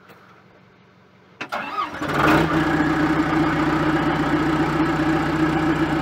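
John Deere 310SG backhoe's turbo diesel engine cold-started: quiet for about a second and a half, a brief crank, then it catches about two seconds in and settles into a steady idle.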